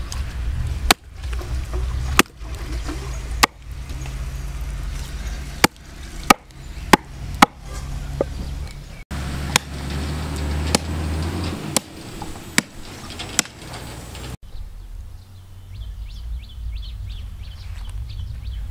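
A cleaver chopping through a skinned cloven-hoofed foot on a wooden stump block: sharp, loud chops about once a second, a few in quicker succession around six to seven seconds in. Near the end the chopping stops and only faint high chirping remains.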